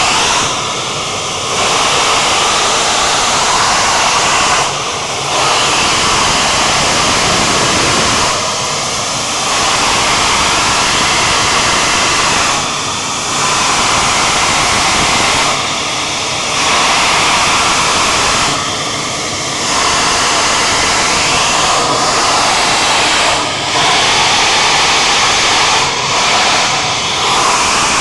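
Crude oil escaping as gas under high pressure from a leaking oil pipeline, blasting out of the ground in a loud, steady hissing jet that dips briefly every three to four seconds.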